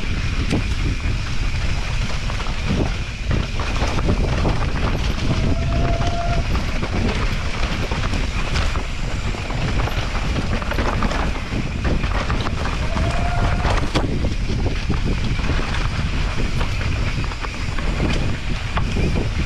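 Mountain bike rolling fast down a dirt trail: tyres running over dirt, roots and stones, with the bike's chain and frame rattling and knocking over the bumps and wind buffeting the microphone. Two short squeaks, about six and thirteen seconds in.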